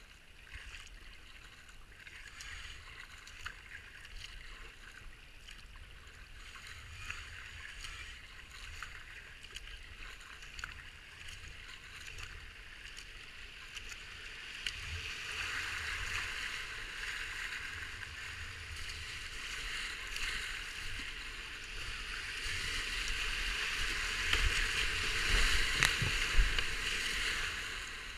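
Rushing river water around a kayak, with small splashes of paddle strokes; from about halfway through the rush of whitewater rapids grows steadily louder as the kayak runs into them, loudest near the end.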